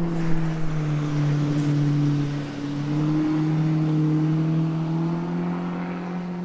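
A motor engine running steadily with a low hum. Its pitch dips slightly about half a second in and climbs back a couple of seconds later.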